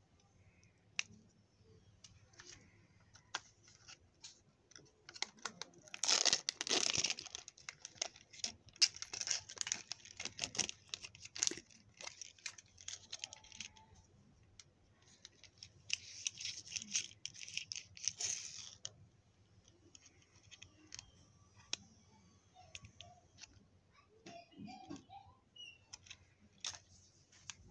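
Thin plastic wrapping crinkling and tearing in several bursts: about six seconds in, again for several seconds from about eight seconds, and once more from about sixteen seconds. Small clicks and taps of a plastic toy being handled come in between.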